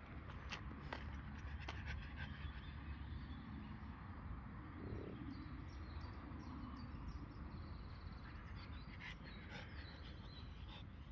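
French bulldog panting steadily.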